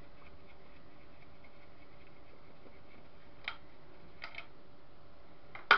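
Screwdriver working the screws on a CCTV camera's top plate: a few faint clicks, then a sharper double click near the end, over a steady low hiss.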